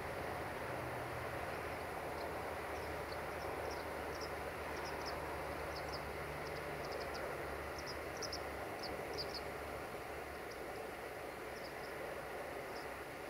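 Siemens Desiro VT642 diesel multiple unit idling with a steady low engine hum. Birds chirp many short times high above it through the middle.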